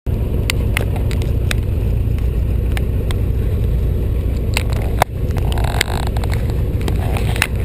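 Light aircraft's piston engine and propeller running steadily on the ground, heard from inside the cockpit as a loud low drone. Scattered clicks and knocks from the camera being handled, the sharpest about five seconds in.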